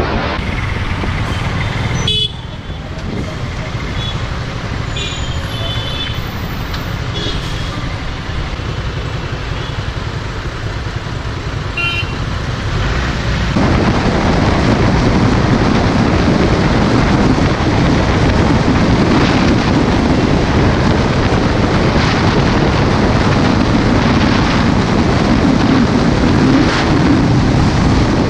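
Suzuki Gixxer motorcycle ride heard from a helmet camera: engine and road noise, with a few short vehicle horn toots in the first half. About halfway through, after a cut, it changes to a louder, steady rush of wind and engine at highway speed.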